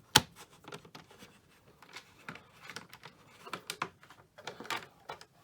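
Phillips screwdriver turning a screw into the plastic motor retainer of a Hoover Elite upright vacuum: a sharp click just after the start, then irregular small clicks and scrapes as the screw is driven in by hand.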